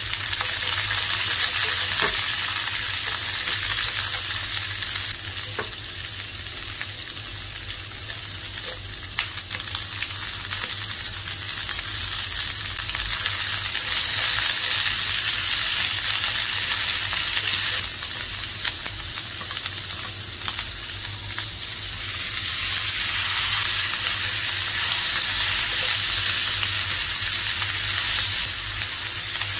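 Food sizzling in hot oil in a pan for dry chilli chicken, with a steady crackling hiss that swells and eases and a few light taps from a stirring utensil.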